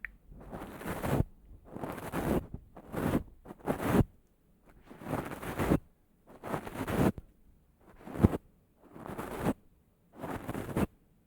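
About nine short noisy strokes in a row, roughly one a second, each swelling and then stopping abruptly, a couple ending in a sharp click.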